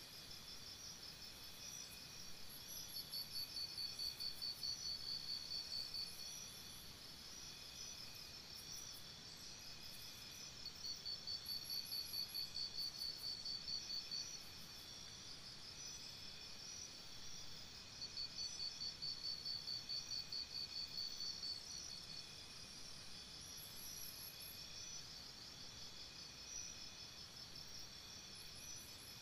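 Crickets chirping in a steady chorus, with one louder high trill that comes and goes in bouts of a few seconds.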